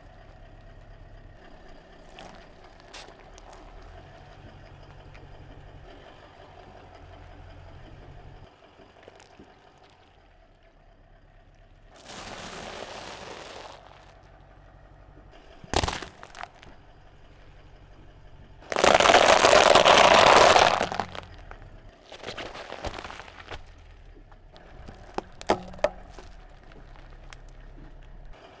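A car tyre rolling slowly over brittle food items and crushing them, giving cracks and crunches over the low hum of the car's engine. There is a single sharp crack about halfway through, a loud crunching burst of about two seconds a little later, and a few smaller clicks after it.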